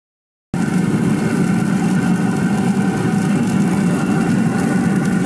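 A steady, loud machine hum that cuts in suddenly about half a second in and holds even.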